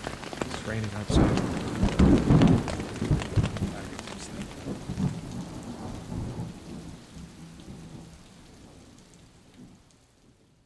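Rain falling, with a long roll of thunder starting about a second in that rumbles and slowly dies away. The whole sound fades out near the end.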